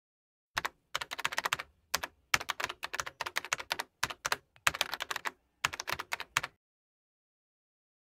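Typing on a computer keyboard: quick runs of key clicks in uneven bursts, stopping about six and a half seconds in.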